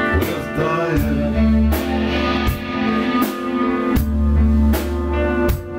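Live band playing: electric guitars over a drum kit, with a beat about every three-quarters of a second.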